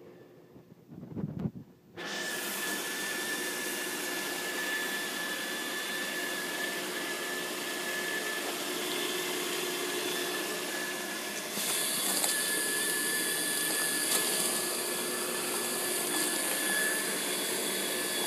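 A pool pump switched on about two seconds in, running with a loud, steady rushing noise and a thin high whine, getting louder again a little past the middle. This is the loud noise the technician came to diagnose, which he recognises.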